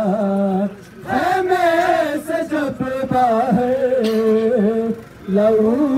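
Noha, a Shia mourning lament, chanted in long drawn-out sung lines, with short breaks about a second in and again near the end.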